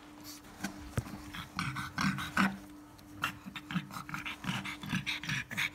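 Black pug bitch in labour panting in quick, noisy breaths, about four a second, with a rough voiced edge.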